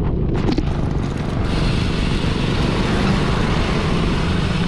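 Wind buffeting an action camera's microphone while cycling: a steady, loud rumble, with a hiss that grows stronger about a second and a half in.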